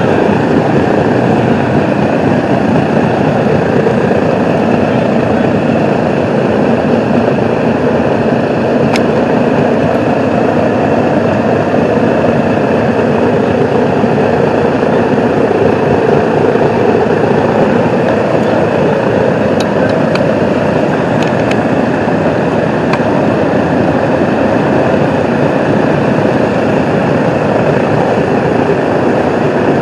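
The four Wright R-3350 radial piston engines of a B-29 Superfortress running at idle while the bomber stands parked: a loud, steady propeller drone that holds the same pitch throughout.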